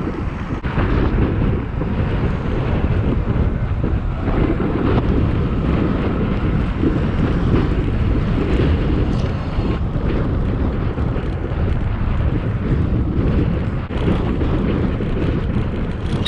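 Wind buffeting the microphone of a camera carried on a moving electric BMX bike, a steady low rumble throughout.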